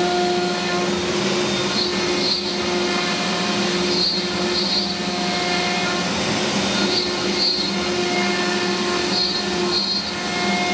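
CNC router spindle cutting a circular pocket in birch plywood with a solid-carbide spiral flute plunge bit, while a dust-collection hose sucks up the chips at the bit. The cutting noise is steady, with several whining tones that come and go every second or two as the machine moves.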